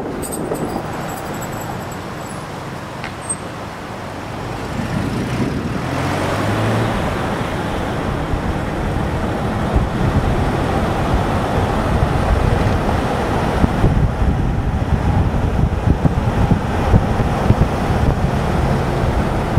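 Steady road and engine noise of a moving car, getting louder about six seconds in as it picks up speed.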